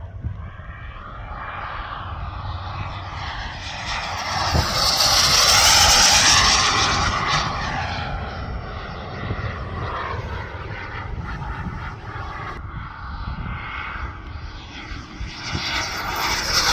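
A radio-controlled model aircraft flying passes overhead. Its motor sound swells as it comes close about five seconds in and again near the end, with the pitch sliding down as it goes by. Wind rumbles on the microphone underneath.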